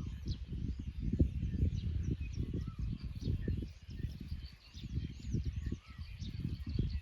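Wind buffeting the microphone in uneven gusts, with many short birdcalls chirping faintly above it.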